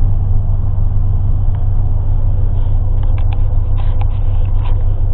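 Steady low drone of a running motor vehicle, with a few faint short clicks about three to four and a half seconds in.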